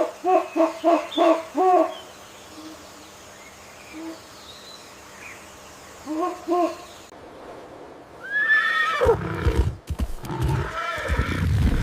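Animal calls: a quick run of five short hooting notes, two more about six seconds in, then a call that falls sharply in pitch, followed by loud, rough blowing sounds.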